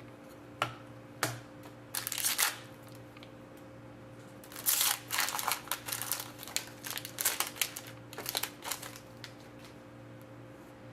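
Trading card packs and cards being handled: a few sharp clicks, then, from about four seconds in, a longer stretch of wrapper crinkling and card rustling. A faint steady electrical hum runs underneath.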